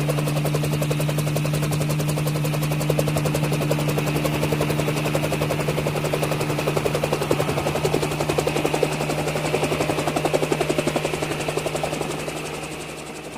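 Helicopter hovering: a fast, steady rotor chop over a constant low engine hum, fading away over the last second or two.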